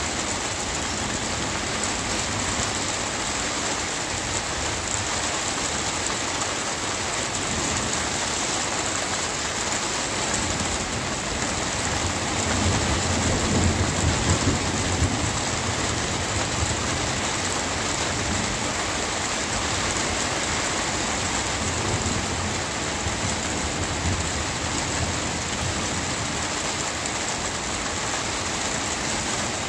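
Steady rain falling, with a low rumble of thunder that swells about twelve seconds in and dies away a few seconds later, and a fainter rumble after it.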